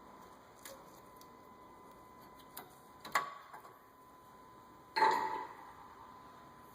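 Metal hand tools being handled: a few light clicks and clinks, then a louder metallic clank about five seconds in that rings briefly.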